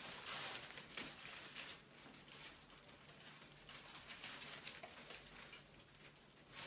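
Quiet room with faint rustling and a few light taps in the first couple of seconds, over a low steady hum.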